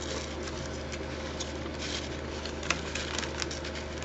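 Foil snack bag crinkling and thin, flat potato chips rustling under the fingers as they are handled: soft, scattered crackles and clicks over a steady low hum.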